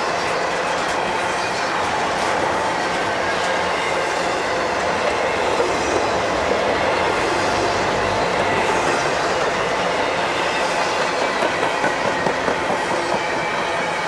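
Intermodal freight train of double-stack well cars rolling past close by: steady rumble and rattle of steel wheels on the rails, with a regular clickety-clack of wheels over rail joints in the last few seconds.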